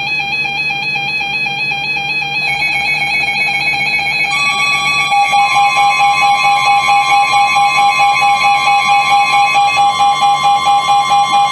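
Electronic emergency-alert tones: several steady pitched tones sounding together, some warbling, starting suddenly, with a pulsing beat of a few pulses a second from about five seconds in.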